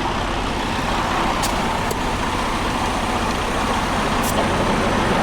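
Steady rushing noise of heavy interstate traffic passing, over the low hum of an idling truck engine, with a few faint ticks.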